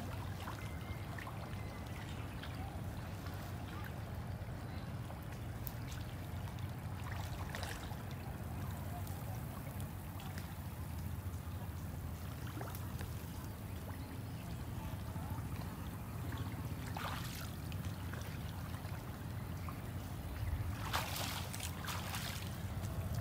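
Pond water splashing and trickling as a bundled cast net is dipped and swished in it, with a few short splashes, the loudest near the end, over a steady low rumble.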